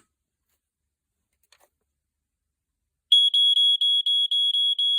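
Smoke alarm sounding a fast, even run of high beeps, about five a second, starting about three seconds in.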